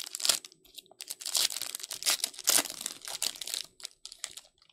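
Foil wrapper of a Panini Prizm football card pack being torn open and crinkled as the cards are pulled out: a run of crackly rustles that stops just before the end.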